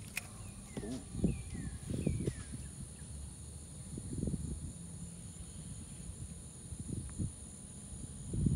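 Quiet open-air ambience on a fishing boat: a few soft, low thumps and rustles, several faint falling bird chirps in the first two or three seconds, and a steady high-pitched whine.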